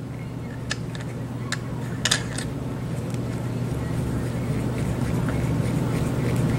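Sharp little metal clicks and taps as a rebuildable tank atomizer is handled and screwed onto a vape mod, a few of them over the first two and a half seconds with the loudest about two seconds in. Under them a steady low hum grows slowly louder.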